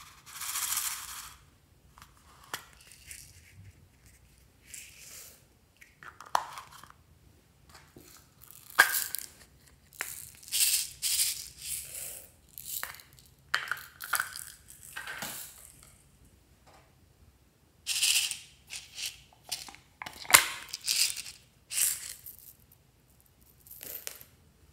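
Small plastic toy containers being opened and handled, with beads, sequins and glitter shaken out onto slime: irregular rattling and hissing pours broken by sharp plastic clicks.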